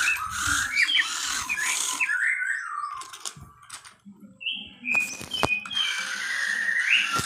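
Small electric motor and gears of a toy remote-control off-road car whining, the pitch rising and falling as it speeds up and slows down. There is a short pause a little past the middle. The long-stored toy still runs.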